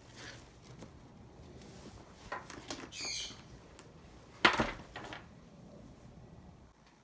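Handling noise from a nylon laptop backpack: fabric rustling and a brief zipper-like rasp about three seconds in, then a sharp thump about four and a half seconds in as the bag is turned over and set down on the table.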